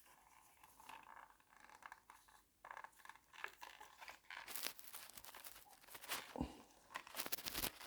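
Quiet rustling, scratching and small clicks of hands working at a motorcycle wiring loom, handling the wires and tape.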